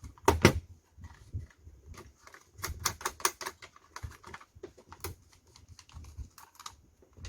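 Irregular clicks and taps of a tool working against metal and plastic parts of an airsoft pistol replica while its big front bolt is unscrewed. The loudest knocks come about half a second in, with a busier run of clicks around the middle.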